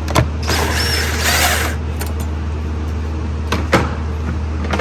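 Hand tools loosening the 8 mm fasteners on the plastic air intake duct: about a second of rapid rasping clicks, then a few sharp knocks of metal and plastic, over a steady low hum.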